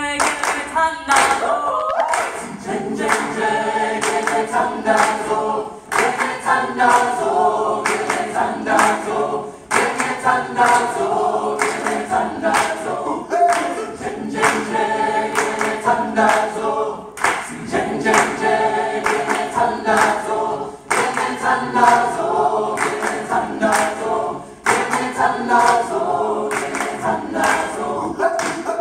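A choir singing a cappella over a steady beat of hand claps, pausing briefly between phrases.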